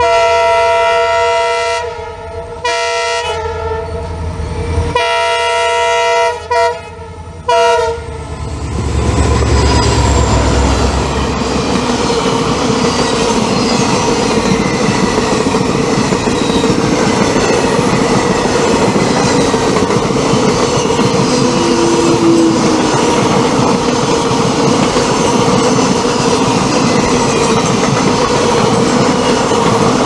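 WDP4D diesel locomotive sounding its multi-tone horn in a string of honks with short breaks for about the first eight seconds, then running past with a low engine rumble. After that its passenger coaches rush by at speed, wheels clattering steadily on the track.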